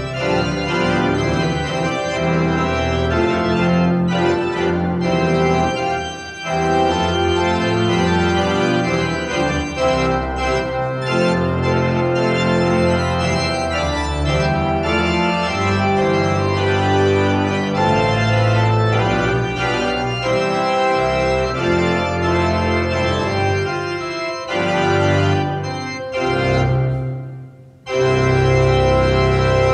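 Organ playing a slow run of sustained chords that change every second or two. The sound dips briefly near the end, then a new chord starts.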